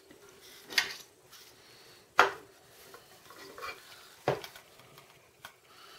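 Die-cast starship models and a plastic display stand being handled on a wooden table: four separate light knocks and clacks, the loudest a little over two seconds in, with faint rubbing between them.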